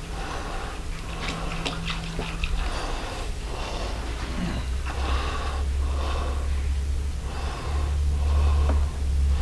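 Cleaning solution glugging out of a large plastic jug into the steel tank of an ultrasonic cleaner. Air gulps back into the jug about once a second, over the steady sound of liquid pouring into the tank.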